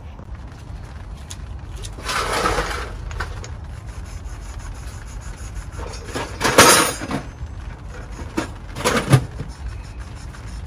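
Oil stone rubbed over the aluminium gasket face of a Honda B18C cylinder head, dressing the mating surface for a new valve cover gasket. Three short scraping bursts come about two, six and nine seconds in, over a steady low background rumble.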